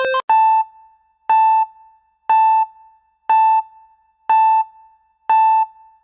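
Synthesized emergency-alert tone beeping six times, about once a second: each beep a short single note that fades fast, with a faint steady tone of the same pitch between beeps, like a device's low-battery warning beep.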